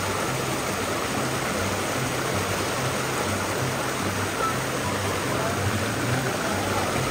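Shallow rocky forest stream running, a steady rush of flowing water.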